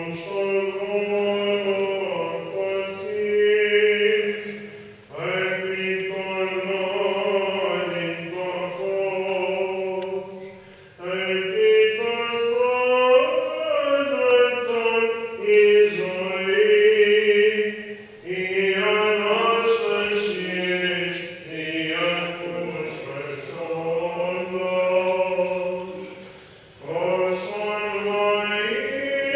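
Byzantine ecclesiastical chant: a chanter singing a slow, ornamented melody over a steady held low drone (ison), in long phrases with short breaks between them.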